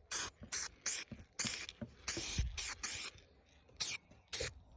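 Etch primer being sprayed in short hissing bursts, about eight in quick succession, the longest about two seconds in.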